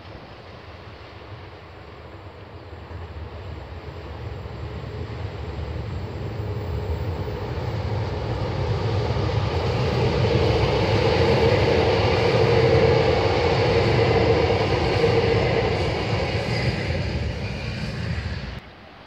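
Double-deck electric commuter train passing along the track. Its rumble and wheel noise grow louder as it approaches, are loudest midway, then cut off suddenly near the end.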